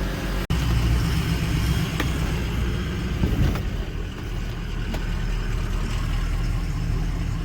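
Truck engine running steadily, broken by a brief drop-out about half a second in, with a short swell in pitch around the middle.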